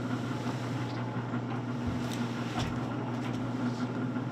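Electric hoist motor running with a steady hum while it lifts a swordfish of roughly 240 lb on a hanging scale.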